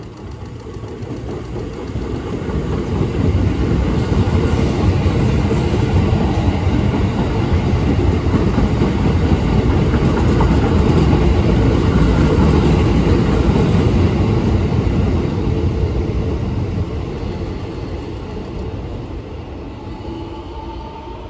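Keikyu 1000 series train, set 1033 with the 'Doremi' inverter, passing through a station at speed. The wheel and rail noise builds over the first few seconds, stays loud through the middle and fades away near the end.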